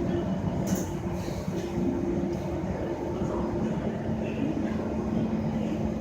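Steady cabin noise inside an SMRT C151 metro train, with an even electrical hum; a second, lower hum comes in about four seconds in.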